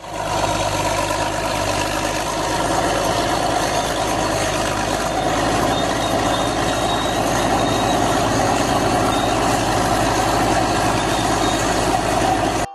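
Bulldozer's diesel engine running steadily at a constant speed.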